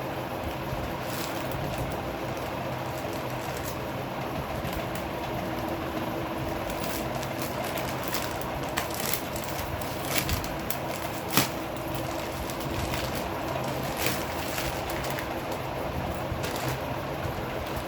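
Steady background hum with scattered short crinkles and clicks of packaging being handled, the sharpest click about eleven seconds in.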